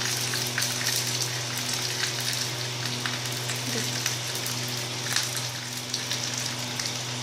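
Curry leaves and mustard seeds sizzling in hot mustard oil in a small steel tempering ladle, a steady hiss with scattered pops and crackles over a steady low hum. This is the tadka at the end of frying, the mustard seeds already crackled.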